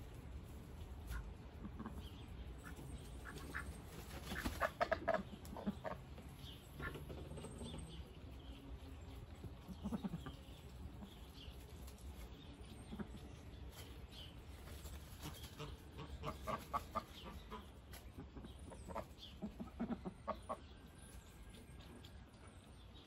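Domestic Indian Runner ducks calling in quick runs of short quacks, a few seconds in and again several times later, with quieter gaps between.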